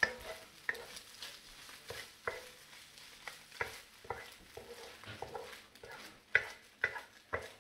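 Eggs frying in an electric wok with a faint sizzle while a utensil scrapes and knocks against the pan as they are stirred slowly. The knocks come irregularly, about one a second, with the loudest near the end.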